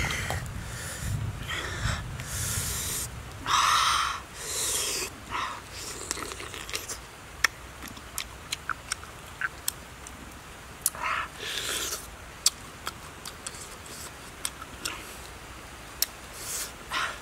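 A person eating roast meat with their hands: several loud breathy hisses and puffs through the mouth in the first few seconds, then a run of sharp clicks and smacks of chewing and pulling meat from the bone, with another couple of breaths near the middle and the end.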